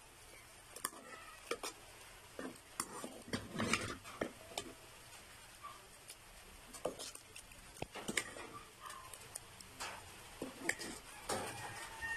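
Metal ladle stirring noodle soup in a large aluminium pot, with irregular clinks and scrapes against the pot.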